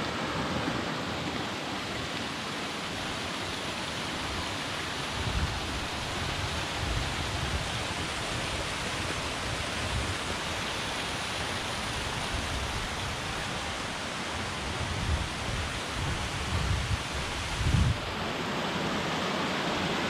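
Steady rushing of small waterfalls cascading into rock pools in a shale gorge, with occasional low rumbles that grow more frequent in the second half.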